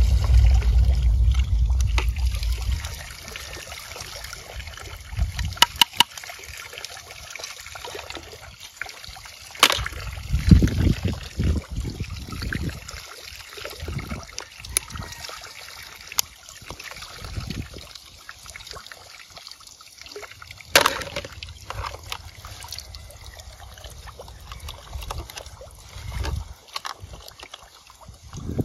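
Shallow muddy water sloshing and trickling as hands move plastic toy guns about in a puddle, with a quick run of clicks about six seconds in and a few single sharp plastic clicks and knocks, the loudest about twenty seconds in.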